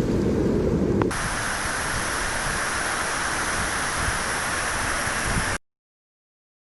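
Rushing noise of a waterfall: a deep rumble that changes abruptly about a second in to a hissing rush of falling water and spray, then cuts off to silence near the end.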